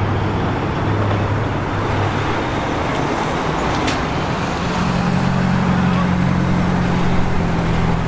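Street traffic: a semi tractor's diesel engine rumbling as the truck drives slowly past, with a second, higher-pitched engine hum joining about halfway through.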